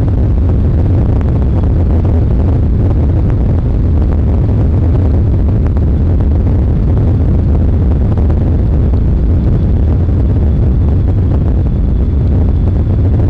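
Fiberglass bass boat running flat out across open water: a loud, steady, deep rumble of wind buffeting the microphone, with the outboard motor and the hull on the water underneath it.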